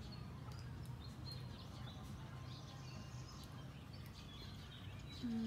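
Faint background ambience: scattered short bird chirps over a steady low hum.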